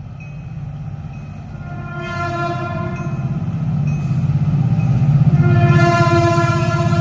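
Amtrak MP15DC locomotive's horn sounding two long blasts, each a single odd-sounding pitch, the second starting a little after halfway. Under the horn, the low rumble of the approaching train grows louder throughout.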